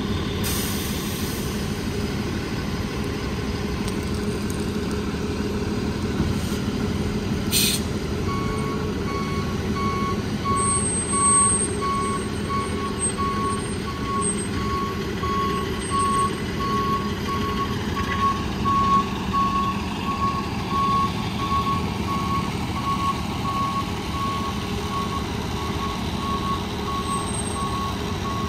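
Ambulance engine running at low speed as the vehicle manoeuvres, with a short sharp sound at about eight seconds; just after, its reversing alarm starts beeping in a steady repeating pattern as it backs up.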